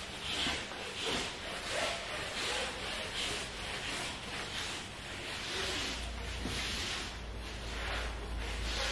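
Wet strip mop swishing back and forth across the floor in repeated strokes, a little faster than one a second.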